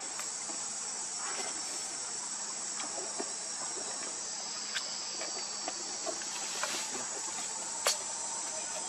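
Steady high-pitched drone of insects, with scattered light clicks and one sharper click near the end.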